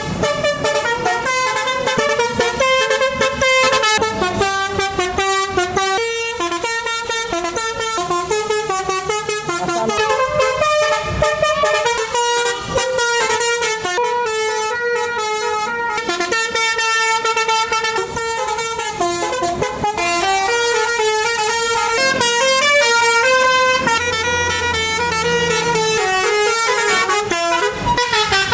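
Bus telolet basuri horn playing a fast melody of short notes that step up and down almost without pause.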